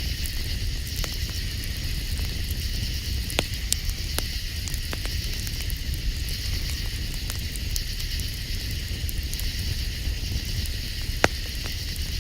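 Campfire crackling with scattered sharp pops, the loudest about eleven seconds in. Behind it runs a steady high-pitched night chorus and a low rumble.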